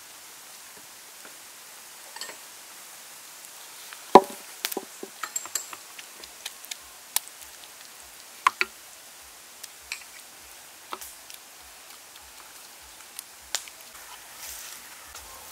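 Bamboo skewers clicking and knocking against a metal tray as skewered snake pieces are turned in flour: scattered light taps, the sharpest about four seconds in.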